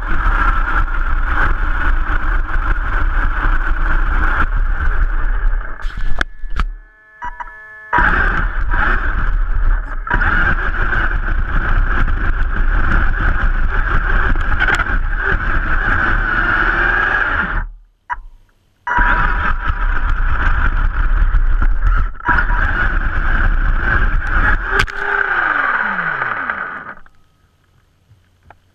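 Vaterra Twin Hammers RC rock racer driving over dirt, heard from a camera mounted on the truck: a steady motor and drivetrain whine mixed with tyre and dirt noise. It breaks off twice for a second or two, gives one falling whine near the end, then stops.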